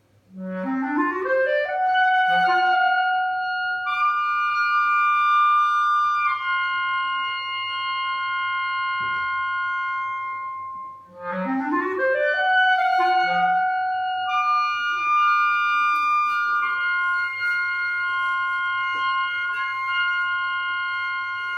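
A solo woodwind instrument plays two phrases, each opening with a fast upward run and settling into long held high notes.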